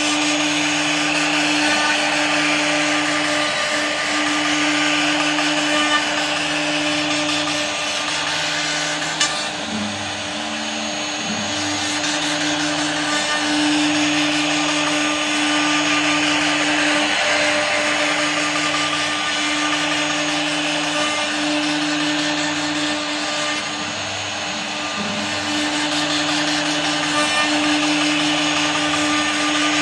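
CNC router spindle running at a steady pitch while its bit cuts wood, with a continuous hiss of cutting. Under it, a lower motor hum switches on and off about once a second.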